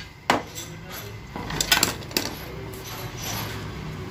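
A handful of sharp clicks and light clinks as hands work the solenoid wiring connectors and small parts on the valve body of a Daihatsu Xenia automatic transmission.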